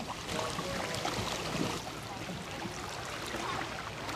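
Canoe paddles dipping and pulling through river water, with water splashing and rippling around the hulls.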